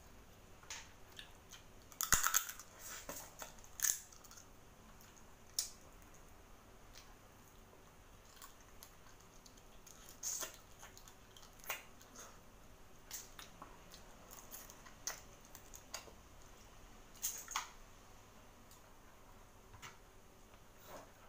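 Close-up eating sounds of a person working through boiled seafood by hand: scattered sharp clicks of lip smacks, sucking and chewing, with the busiest, loudest cluster about two seconds in.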